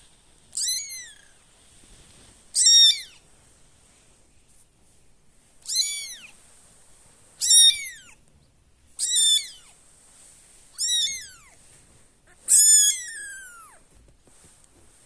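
Young kitten meowing, seven high-pitched calls about every two seconds, each falling in pitch, the last one longest. The calls of a kitten searching for its littermates.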